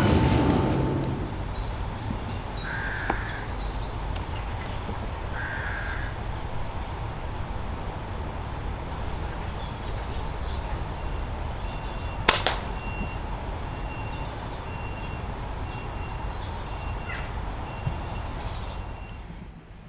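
Crows cawing twice and small birds chirping over a steady low rumble of wind. About twelve seconds in there is a single sharp crack, the shot of a .22 Reximex Pretensis regulated PCP air rifle.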